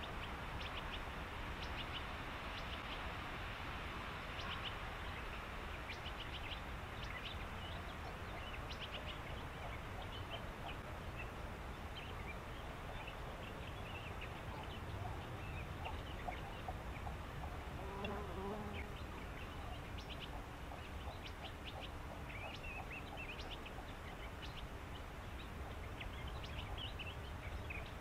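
Birds calling in a reed bed: many short, high chirps scattered throughout, over a steady low background rumble. About two-thirds of the way through there is a single lower call.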